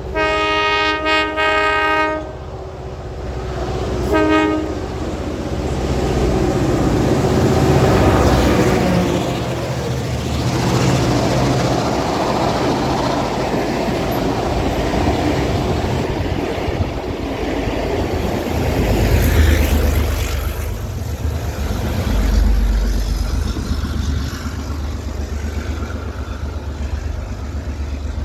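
A 42 class diesel locomotive's horn sounding a chopped series of blasts, then one more short blast, as the train approaches, followed by the train passing at speed with its diesel engines worked hard and the wheels clattering over the rail joints. The low engine rumble swells again about two-thirds of the way through as the locomotive banking at the rear goes by.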